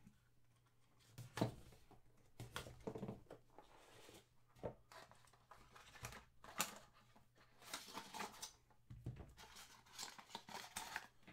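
Hands handling and opening a cardboard trading-card box, faint: scattered scrapes and taps of cardboard with tearing and crinkling of packaging, and a few sharper knocks.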